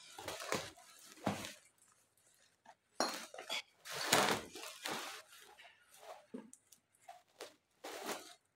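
Hard household objects being handled and sorted: irregular clinks, knocks and clatters, the loudest about three seconds in and again around four seconds in.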